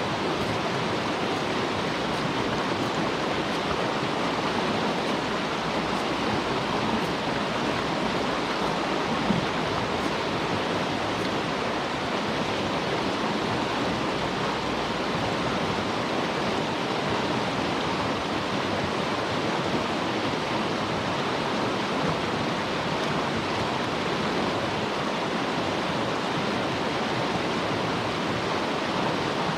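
Steady rush of running water, an even noise that does not change, with one small knock about nine seconds in.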